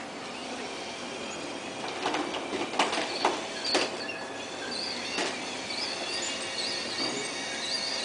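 Electric drive motors of a small radio-controlled tracked robot whining, the pitch wavering as it drives and turns. Several sharp knocks from the tracks and metal frame come between about two and five seconds in.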